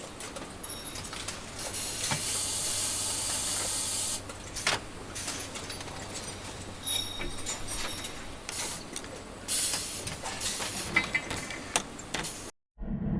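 Industrial machinery hissing, like steam venting, in two long bursts with scattered metallic clicks and knocks; one knock about four and a half seconds in is the loudest. The sound cuts off abruptly near the end.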